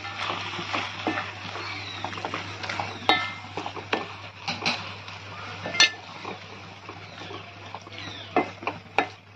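Wooden spatula stirring a thick mix of grated coconut and jaggery syrup in an aluminium pan: irregular scrapes and short knocks against the pan.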